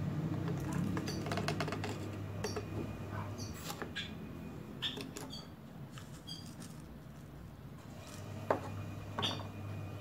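Short high chirps from small birds, repeating about once a second, with light clicks and knocks from a metal spoon and a plastic bottle being handled; one sharper knock near the end. A steady low hum underneath.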